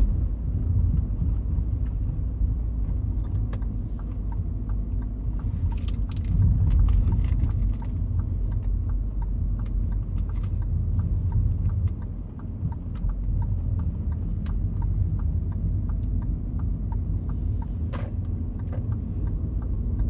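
Inside a moving car: a steady low rumble of the engine and tyres on the road, with frequent small clicks and light rattles throughout.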